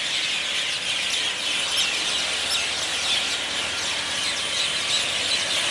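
A flock of birds chattering, with many high chirps and calls overlapping into a steady, continuous din.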